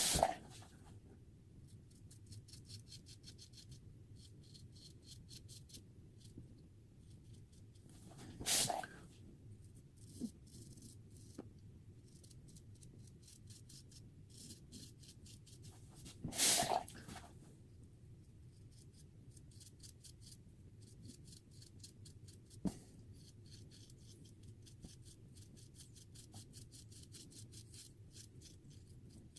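A Feather Artist Club SS razor scraping through lathered stubble in rapid short strokes, a fast scratchy crackle of hair being cut. Three louder brief noises come about eight seconds apart, and there is a sharp click near the end.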